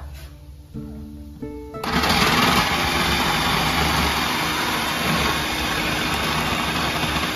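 An electric food processor's motor switches on suddenly about two seconds in and runs steadily and loudly, shredding carrots and beets.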